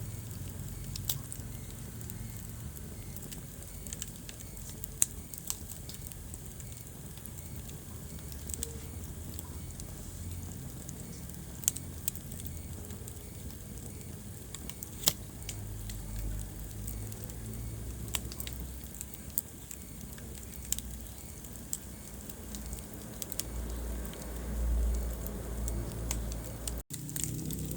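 Wood fire burning in a fireplace, crackling, with scattered sharp pops over a low, steady rumble of the flames.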